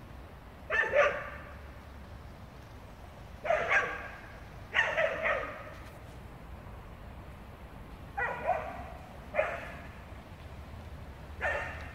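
Dog barking in about six short bursts, one or two barks at a time, spaced a second to a few seconds apart.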